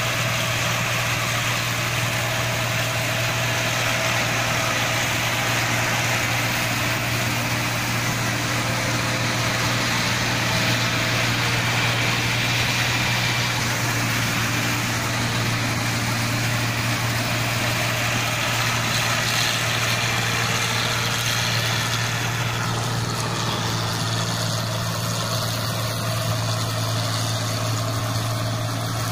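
Old New Holland combine harvester running steadily while it cuts rice: a constant low engine hum under the broad noise of the machinery. The higher part of the noise drops a little about three quarters of the way through as the machine moves off into the field.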